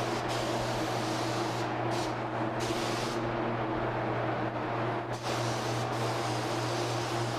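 Spray gun hissing steadily as it sprays finish, the hiss easing briefly twice between passes, over a constant low hum.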